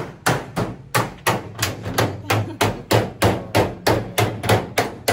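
Steady hammering on a car's sheet-steel roof panel, about three sharp metal blows a second, as the rusted roof is being replaced.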